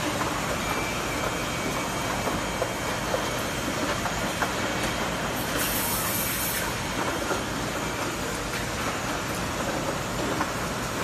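Steady mechanical hum and hiss of an automated multi-head soldering robot working in a factory, with light scattered clicks and a short, sharp high hiss about halfway through.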